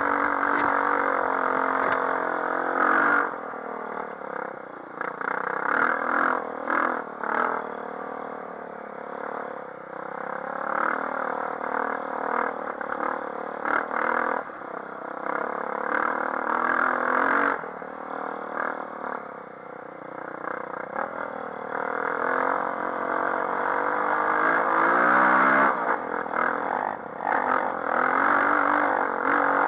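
Four-stroke dirt bike engines running and revving, the pitch climbing and falling again and again as the throttle is opened and closed.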